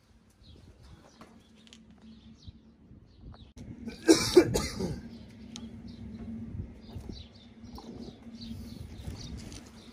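Two quick coughs close together about four seconds in, over a faint steady hum.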